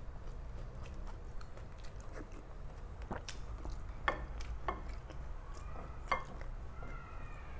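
Wooden spoon and fork knocking and scraping against a plate and glass dish, a handful of light clicks a second or so apart, over quiet chewing and a steady low background hum.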